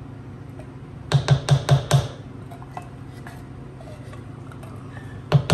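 A metal soup can being knocked and scraped out with a rubber spatula: a quick run of about five sharp knocks about a second in, faint scraping clicks, then a few more knocks near the end.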